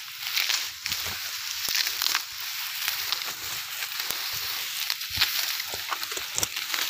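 Tall grass being pulled up by hand: a steady rustling with many small snaps and crackles as the stems break.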